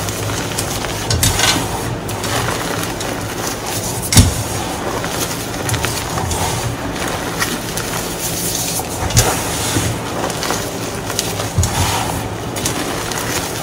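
Hands crushing, squeezing and rubbing loose powdered gym chalk, a steady crumbly rustle broken by a few sharper thuds, the loudest about four seconds in.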